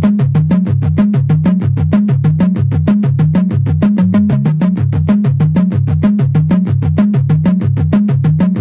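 Electronic background music: a synthesizer with a fast, evenly repeating bass pulse.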